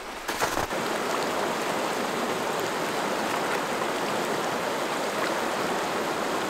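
A stream running steadily, an even rushing of water, with a few faint knocks in the first second.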